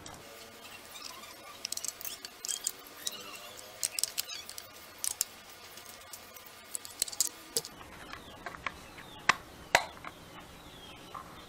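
Small plastic clicks, taps and rattles as the soldering stand's black plastic base and its AA battery compartment are handled and turned over, with two sharper clicks about nine and a half seconds in.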